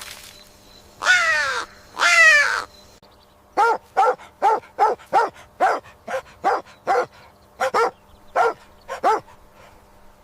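A bird calling: two long calls falling in pitch, then a run of short, harsh calls, about two to three a second.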